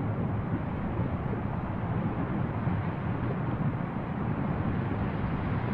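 Continuous low rumble of a volcanic fissure eruption, the lava fountaining in the cone giving a steady, gusty roar heavy in the low end.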